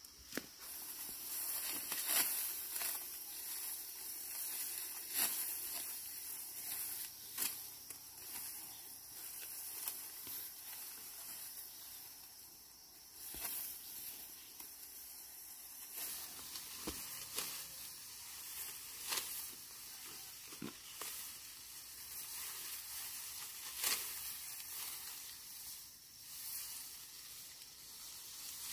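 Dry plant stalks rustling and crackling, with irregular sharp snaps, over a steady high hiss.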